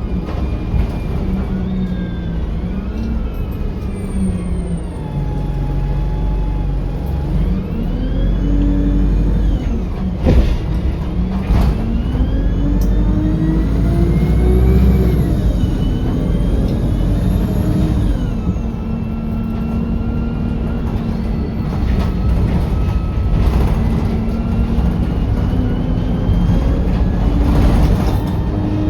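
Bus heard from on board: the diesel engine and gearbox pull away and accelerate through the gears, the pitch climbing and dropping back at each change. Two sharp knocks come about ten and twelve seconds in, over a steady rattle.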